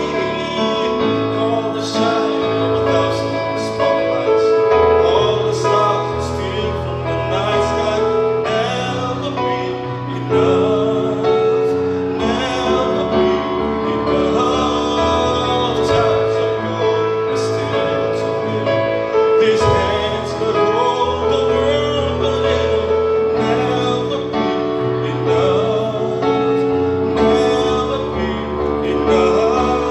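A man singing a pop song live into a handheld microphone over instrumental accompaniment, his voice holding and sliding between long notes.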